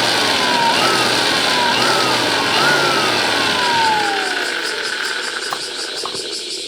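Gas torch burner lit and roaring, heating a branding iron. A whistling tone rides on the roar, sliding down and jumping back up several times, and the roar eases off after about four seconds.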